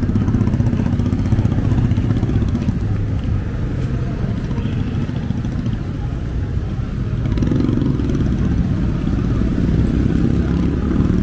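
Street traffic: motorcycle and motorcycle-sidecar tricycle engines running and passing, giving a steady low engine hum that swells a little about two thirds of the way through.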